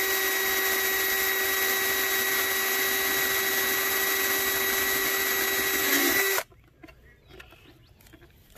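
Cordless drill with a 5/16-inch bit boring a hole through the side of a plastic bucket: a steady, even-pitched motor whine under light pressure that cuts off suddenly about six seconds in.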